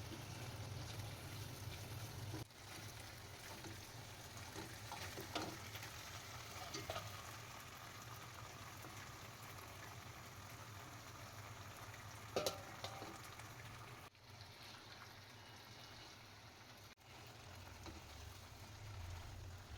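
Food frying in oil in a pan, a steady faint sizzle, with a few sharp clinks of a utensil against the pan, the clearest about twelve seconds in.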